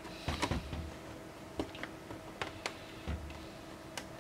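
Light, scattered clicks and ticks of a small screwdriver driving a screw into the plastic screen bezel of an HP Pavilion G7 laptop, with fingers handling the plastic: a quick cluster near the start, then single clicks at irregular intervals.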